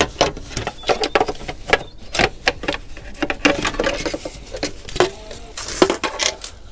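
Quick, irregular clicks and clatter of hand tools and parts being worked on during an engine teardown, several a second.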